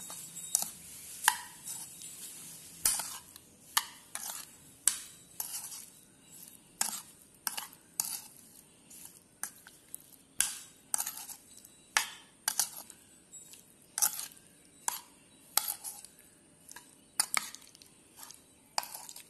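Steel spoon stirring raw prawns coated in chilli powder and salt in a bowl, the spoon clinking against the bowl's side in an irregular run of about one to two sharp clinks a second.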